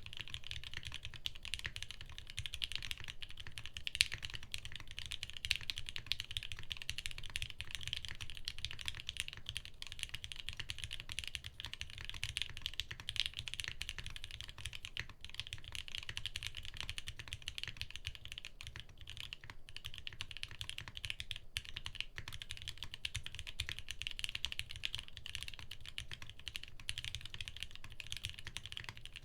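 Continuous typing on a custom mechanical keyboard: a TGR x TypeMachina Jane 1.5 with lubed and filmed Gateron Giant V3 switches, a half POM plate and CRP Tulip keycaps, giving a dense, steady stream of keystrokes with a few brief pauses past the middle.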